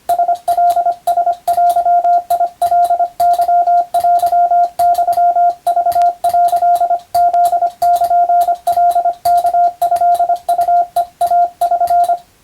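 Morse code tone of roughly 700 Hz keyed in quick dots and dashes, with a click at each keying, stopping just before the end.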